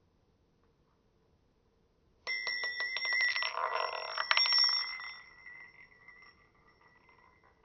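A wedding ring spun on a hard surface: about two seconds in it starts suddenly, rattling rapidly with a high metallic ring for about three seconds, then the ringing fades away over the next two.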